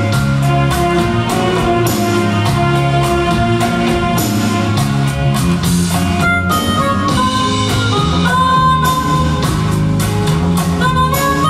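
Live band playing an instrumental: a held melodic lead over bass and drums with a steady beat.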